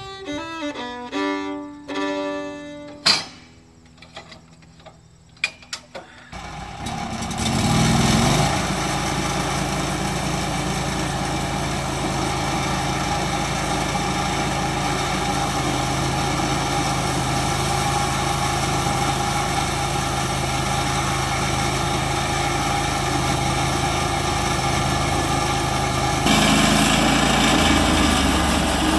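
Violin music fades out and a few sharp clicks follow. About six seconds in, the Norwood LumberPro HD36 bandsaw mill's engine starts, settles and runs steadily. Near the end the sound grows louder and hissier as the band blade cuts into the maple log.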